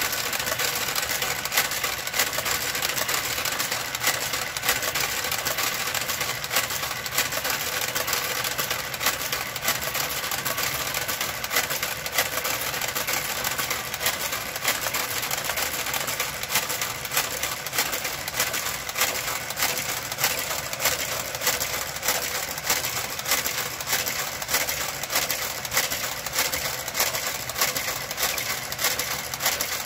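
Brother KG-93E garter carriage working its way across a knitting machine's needle bed. A steady motor hum is overlaid by regular sharp clicks, about two a second.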